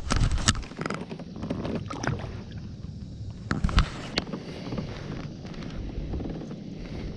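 Scattered knocks and clicks of handling aboard a fishing kayak, gear bumping the plastic hull, over a steady low wind rumble on the microphone.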